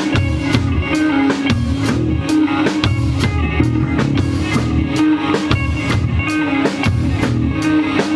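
Instrumental rock trio playing live: a hollow-body electric guitar and an electric bass over a drum kit keeping a steady beat of drum and cymbal hits.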